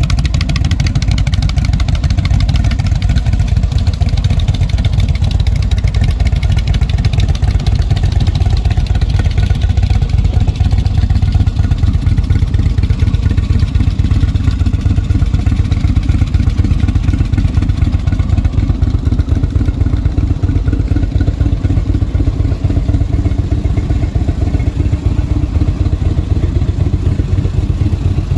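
Indian V-twin motorcycle engine idling steadily, a deep, even exhaust beat.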